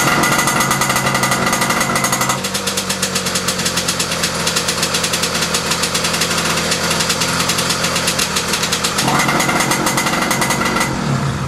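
Puch Maxi moped's single-cylinder two-stroke engine running fast and steadily through a cigar exhaust that leaks at the joint between header pipe and silencer. The note turns duller about two seconds in and brightens again near the end.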